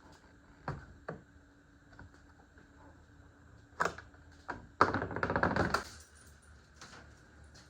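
Hand tools and car parts being handled during reassembly: a few separate knocks and clicks, then about a second of rapid clicking about five seconds in.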